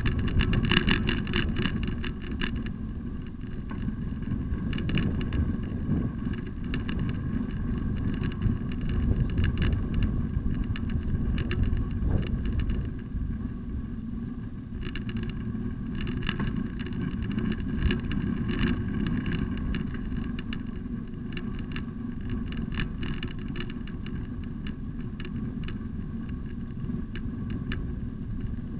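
Steady low rumble of wind and road vibration picked up by a bicycle-mounted camera while riding on a paved path, with short rattling clicks now and then as the bike goes over bumps.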